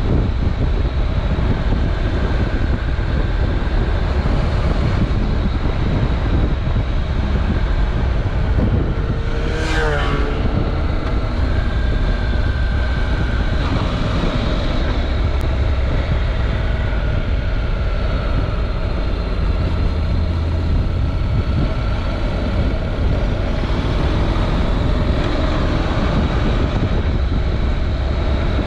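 Honda NC700X's parallel-twin engine running as the motorcycle rides along at road speed, under a heavy, steady rumble of wind on the bike-mounted action camera's microphone. There is a brief sharper sound with a quick change in pitch about ten seconds in.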